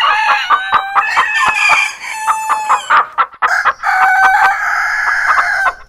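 Chickens clucking and a rooster crowing, with several pitched calls overlapping and a long held crow in the second half.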